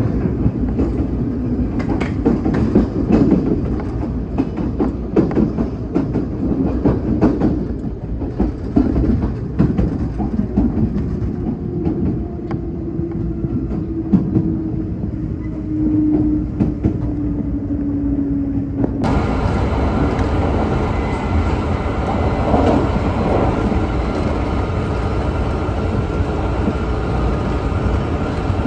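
Train running on the rails, heard from inside the passenger car: a steady low rumble with wheels clicking over rail joints, and in the middle a steady hum that slowly falls a little in pitch. About two-thirds of the way in the sound changes abruptly to a brighter running noise.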